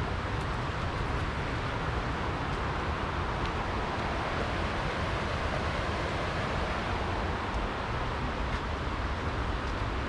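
Steady rushing of a rocky river's rapids, an even hiss with no breaks.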